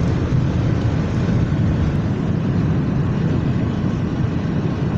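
Steady low rumble of a car driving in very strong wind, heard from inside the cabin: road and wind noise.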